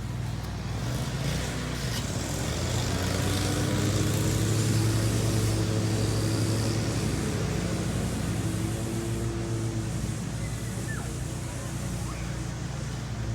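An engine running with a low, steady hum that grows louder about four seconds in and then eases off, as if passing by.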